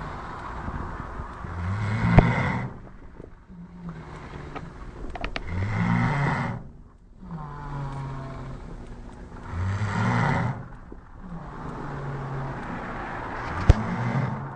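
A person snoring in sleep: a low, humming snore with a breathy rush on each breath, about every four seconds, four times. Two sharp clicks, about two seconds in and near the end.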